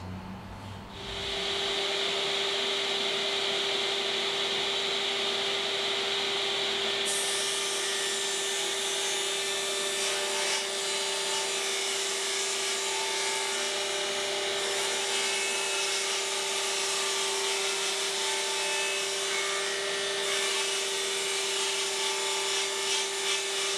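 Table saw switched on about a second in, then running steadily with a constant motor hum as its blade rips a long sheet of 3/4-inch MDF lengthwise.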